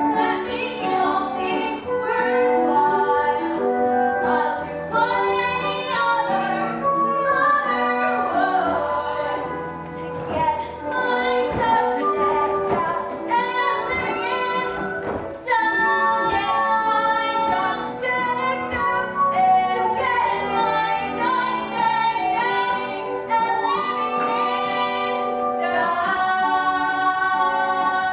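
Young stage cast singing a musical-theatre song over instrumental accompaniment, with female and children's voices joining as a chorus. The singing dips briefly and comes back fuller about halfway through.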